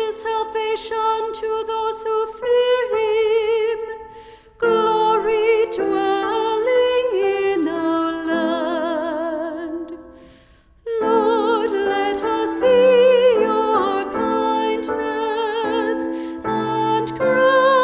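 Music: the responsorial psalm sung by a voice with vibrato, in long held phrases broken by short pauses about four and ten seconds in.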